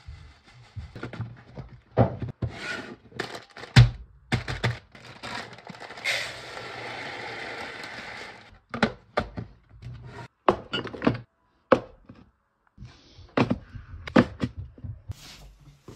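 Dishes and kitchen utensils knocking and clattering as they are handled, in a run of separate knocks, the loudest about four seconds in. About six seconds in, a steady hiss runs for about two and a half seconds.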